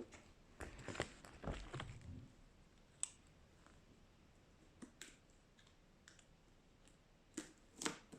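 Scattered light clicks and soft rustles of packaging being handled and opened by hand, a little busier in the first two seconds and again near the end.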